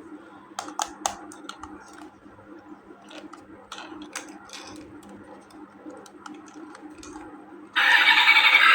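Light plastic clicks and taps of toy pieces being handled, then about eight seconds in a loud electronic toy sound effect starts abruptly and carries on.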